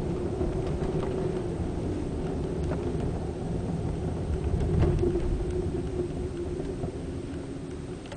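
BMW 740i driving, heard from inside the cabin: a steady low road-and-engine rumble with a faint drone, a few faint ticks, and a slight drop in level near the end.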